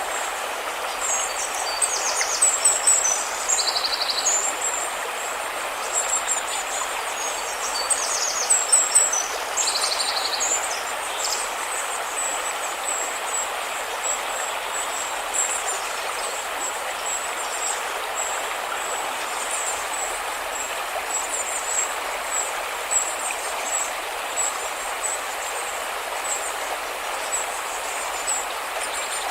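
River water flowing in a steady rush, with birds chirping and trilling above it, busiest in the first ten seconds or so, and a thin steady high tone throughout.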